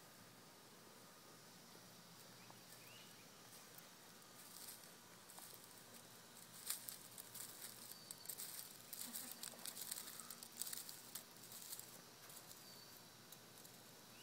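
Faint scratchy rustling and clicking, mostly between about four and twelve seconds in, over a low background hiss, with a few faint, short, high chirps.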